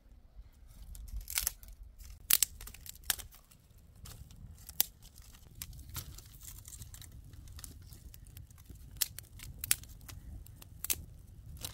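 Dry twigs snapping as they are broken by hand as kindling for a small twig fire: irregular sharp cracks, about a dozen, the loudest a little over two seconds in and again near the end, over a low steady rumble.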